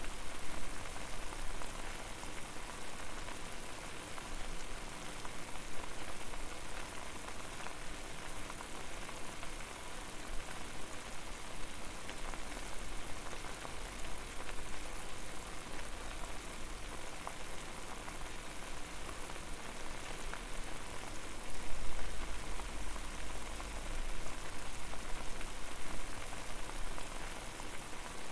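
Water boiling over a fire: a dense, steady bubbling with many fine pops, over a low rumble that swells briefly about two-thirds of the way through.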